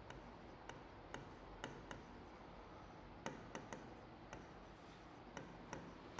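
Faint writing on a green board: irregular light taps and scratches as the letters are written, about one or two a second.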